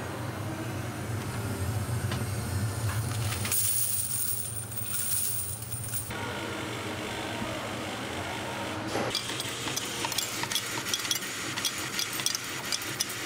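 Coin-striking press machinery running with a steady hum, then a hiss for about two seconds. From about nine seconds in, a rapid clatter of freshly struck 50p coins dropping from the press chute into a plastic bag.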